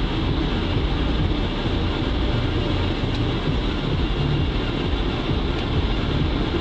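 ATV engine running steadily, a constant low sound with no clear revving.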